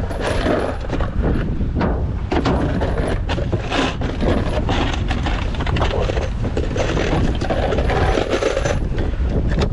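Spent brass shell casings clinking and rattling as they are handled and sorted in a box: a dense run of irregular metallic clicks, over a steady low rumble.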